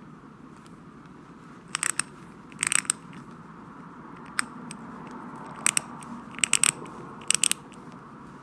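Ratchet mechanism of a 1947 Snap-on GM-70M clicking as its drive square is turned by hand, in about six short runs of one to three sharp metallic clicks. The mechanism has been freshly oiled with Ballistol and turns more easily.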